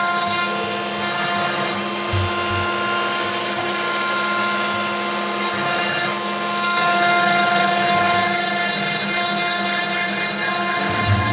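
CNC router spindle running steadily as a 6 mm ball-nose cutter carves MDF: a steady whine made of several held tones, one of which grows louder about seven seconds in.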